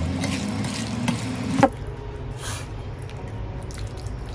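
Wet squishing and stirring of raw chicken pieces, mushrooms and onion being mixed by hand in a stainless steel bowl. A steady low hum under it cuts off abruptly a little under two seconds in.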